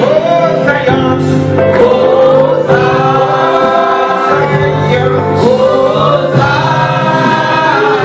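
Gospel choir singing a hymn, a steady, loud congregational anthem with voices held on long notes over a low accompaniment.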